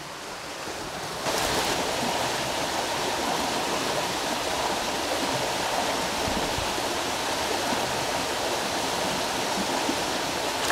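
Steady rush of flowing creek water that comes in abruptly about a second in and then holds even.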